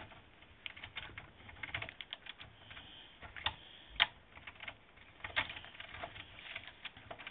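Small metal parts clicking and tapping against each other as a Losi 8ight's aluminium steering knuckle, ball bearing and CV driveshaft are handled and fitted together, a tight fit. Irregular light clicks, with a few sharper ones near the middle, the loudest about four seconds in.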